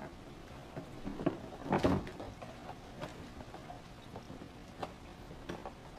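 A cardboard box being handled and laid down on a table: scattered knocks and scrapes, the loudest a thump about two seconds in.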